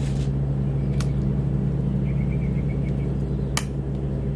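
Pruning shears snipping shoots off a bonsai stock's trunk: three sharp clicks, at the start, about a second in and near the end, over a steady low hum.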